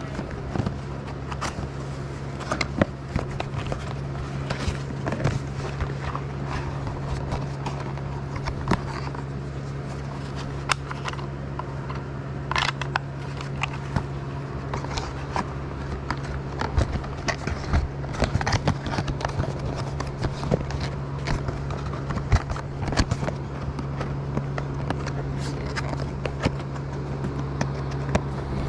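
Hands handling a small cardboard box and a plastic portable radio close to the microphone: scattered clicks, scrapes and rustles of cardboard and plastic. A steady low hum runs underneath.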